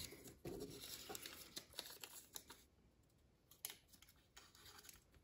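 Near silence: faint rustling and a few light clicks of hands handling a hand-gripper test rig, most of them in the first two and a half seconds, with one more click near the middle.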